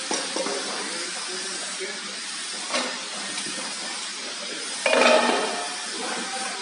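Aluminium machine parts being handled and set down on a concrete floor: scattered metallic clinks and knocks over a steady workshop hiss, with a louder, brief clatter about five seconds in.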